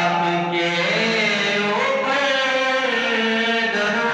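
A young man reciting a naat, an Islamic devotional song, solo into a microphone without instruments, holding long melodic notes that slide from pitch to pitch.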